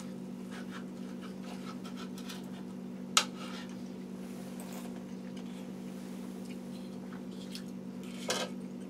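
Cutlery tapping and scraping on dinner plates, with one sharp clink about three seconds in, over a steady low hum.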